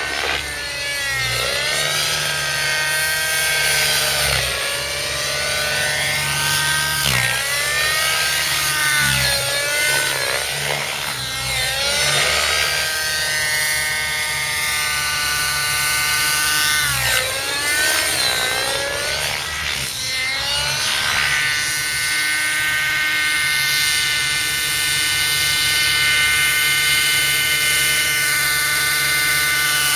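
Velocity 50 nitro model helicopter flown hard: its glow engine and rotor whine swoops up and down in pitch over and over as it is thrown through manoeuvres, then holds a steadier, higher whine for the last third.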